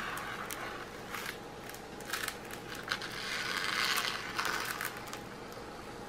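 Plastic protective film being peeled off the glue-coated surface of a diamond painting canvas: a crackling, crinkling peel with a few sharp ticks, swelling for a second or so around the middle.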